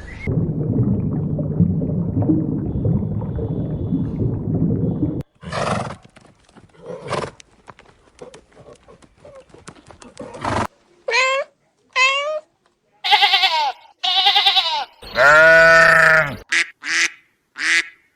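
Livestock-type animal calls. About five seconds of low rumbling noise come first, then scattered clicks, then a run of about eight short pitched calls, the longest and loudest near the end.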